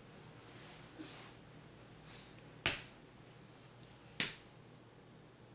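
A toddler's hand slapping a man's back: two sharp smacks about a second and a half apart, with a fainter one about a second in.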